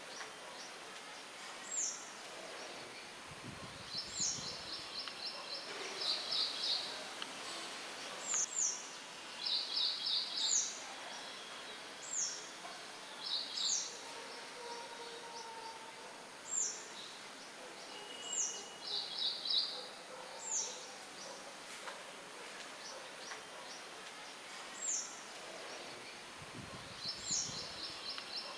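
Songbirds calling over a steady hiss of light wind in the leaves: short, high notes that sweep downward, repeated every second or two, and several quick trills lasting under a second.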